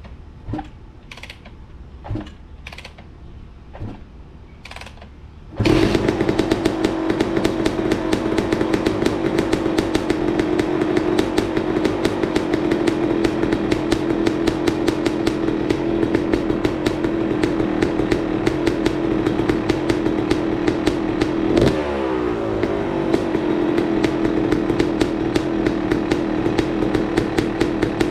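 2024 Yamaha YZ250 two-stroke dirt bike engine started after a few clunks, catching about five and a half seconds in and then idling loudly with a sharp, crackly two-stroke note. About 22 seconds in it is blipped once and falls back to idle.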